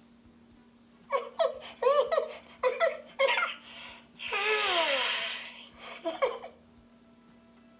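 High-pitched giggling: a quick string of short laughs, then a longer breathy squeal that falls in pitch, and a last brief giggle.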